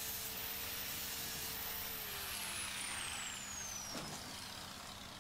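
Angle grinder fitted with a surface-conditioning disc running, then switched off about two seconds in; its whine falls steadily in pitch and fades as the disc spins down.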